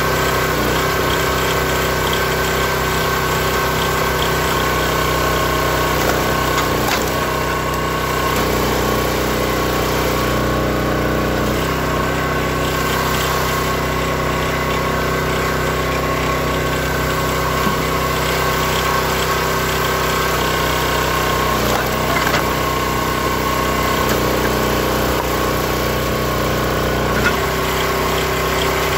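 Small gasoline engine of a hydraulic log splitter running steadily, its note shifting slightly a few times as the ram is worked through logs, with a few light knocks.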